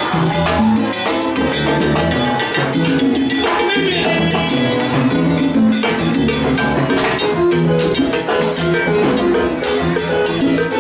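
Live salsa band playing: electronic keyboard over congas and other percussion, with a steady driving beat.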